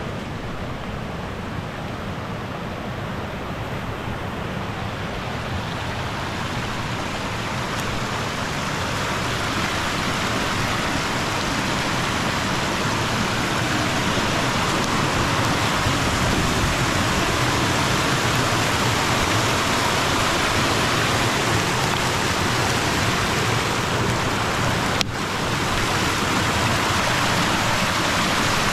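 A fast-flowing woodland stream rushing over rocks, its sound growing steadily louder over the first several seconds as it is approached, then holding. There is one brief click near the end.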